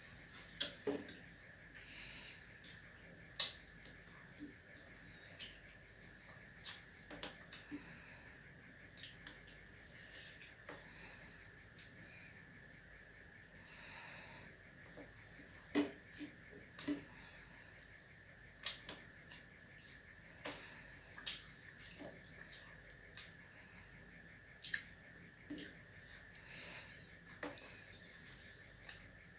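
A cricket chirping continuously in a fast, even pulsing trill, with occasional short clicks over it.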